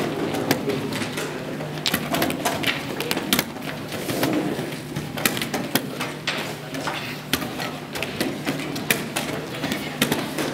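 Wooden or plastic chess pieces being set down on boards and chess clock buttons pressed, making many sharp irregular clicks and knocks from several tables at once.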